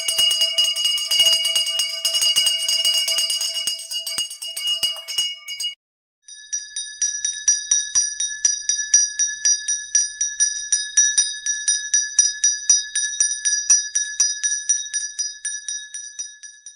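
A handbell rung rapidly and steadily for about six seconds; after a brief pause, a second, higher-pitched handbell rings in the same quick rhythm: the ceremonial 'last bell' marking the end of the school year.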